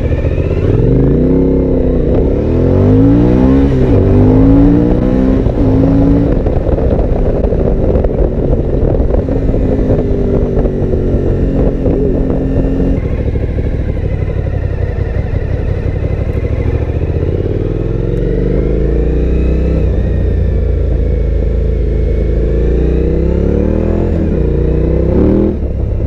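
Suzuki V-Strom 1000 XT's V-twin engine with an Akrapovič exhaust, heard from the rider's helmet while riding. It accelerates hard through several gear changes, the pitch climbing and dropping at each shift, then holds a steady speed. After a cut it pulls away again, climbing in revs a couple more times.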